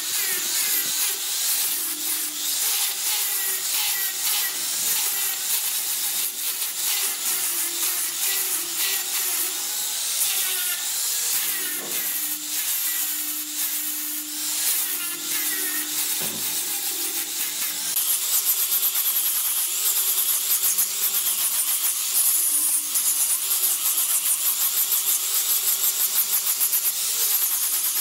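Electric angle grinder fitted with a sanding drum, running and abrading hardwood along the inside of a curved railing piece. The noise steps up louder about two-thirds of the way through.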